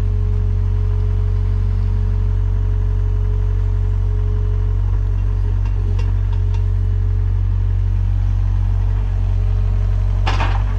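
Sany 60 mini excavator's diesel engine running steadily with a strong low hum, while the machine digs. A brief clatter near the end.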